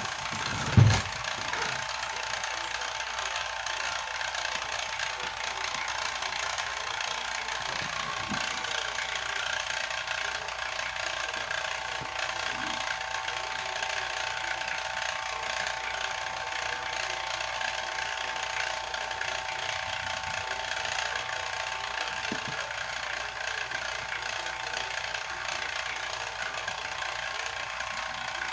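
Rotary-vane vacuum pump running steadily while it holds the bottle under vacuum, a constant mechanical hum with a few steady tones. A single loud thump comes about a second in.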